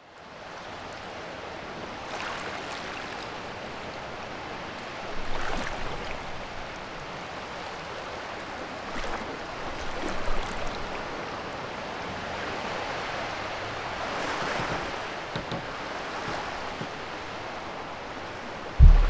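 Ocean waves washing steadily, fading in at the start and swelling three times. A single low thump near the end.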